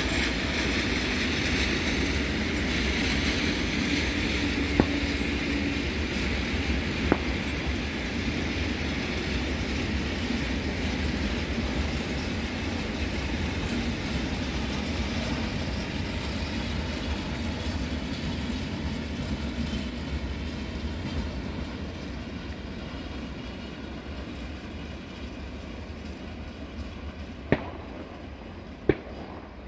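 Freight train of empty container flat wagons rolling past on the rails, a steady rumble and rattle that slowly fades as the train moves away. A few sharp clicks stand out, two near the start and two near the end.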